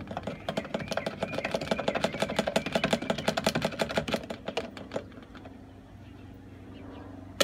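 Two-stroke oil and fuel being mixed in a fuel can: a rapid, even run of clicks for about five seconds, then dying away.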